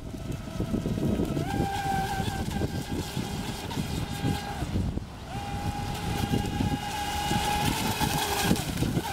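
Atomik Barbwire XL electric RC speedboat's motor whining at speed on the water, a steady high tone that steps up in pitch about a second and a half in, drops out briefly around five seconds and comes back. Wind buffets the microphone underneath.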